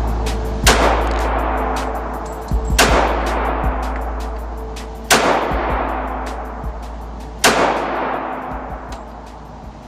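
Four pistol shots, a little over two seconds apart, each ringing out in a long echo down an indoor range, over a low, steady music drone.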